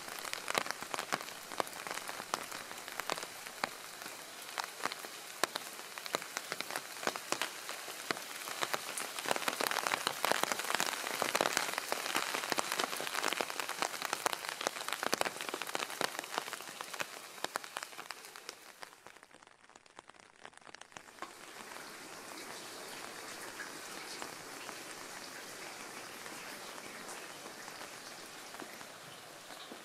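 Steady rain falling, with many separate drop hits close together. About twenty seconds in it briefly drops away, then returns softer and more even.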